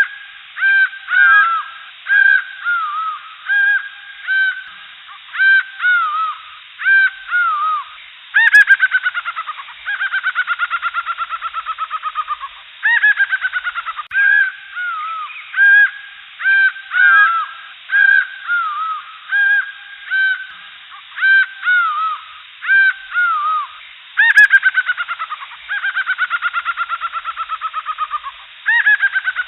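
Jungle birds calling: short arching calls repeated about once a second, twice giving way to a long run of rapid notes that fall in pitch.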